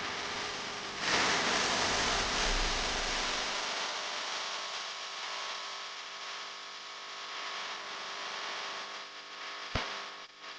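Electric mixer grinder running steadily while grinding coconut chutney, with a sharp click near the end.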